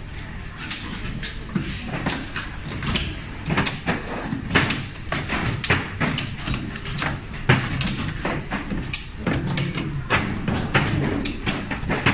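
Automated relay and breaker test bench: irregular sharp plastic clicks and clacks as stepper-motor actuators switch DIN-rail devices and devices are snapped in and out by hand, over a steady low machine hum.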